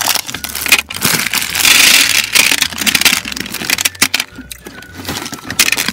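Jelly beans pouring out of a bag and clattering onto a tray: a dense rattle of small hard candies, loudest about two seconds in, thinning to scattered clicks near the end.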